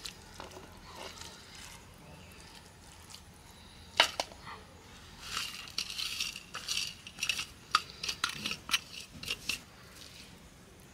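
A steel plate clinks against a stone grinding slab, with a sharp knock about four seconds in, then cumin seeds are tipped from it onto the stone in a run of light ticks and rattles.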